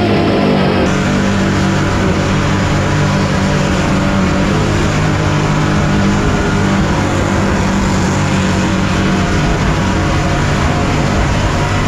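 Supercharged burnout-truck engine held at high revs through a smoky burnout, with a steady, unbroken pitch.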